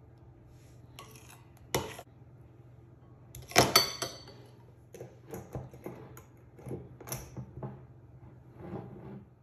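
Metal spoon knocking and scraping against glass as mayonnaise is scooped from a glass bowl into a glass clip-top jar, loudest a few seconds in. A run of lighter clinks and taps follows as the jar's glass lid is clamped shut and the jar is set down.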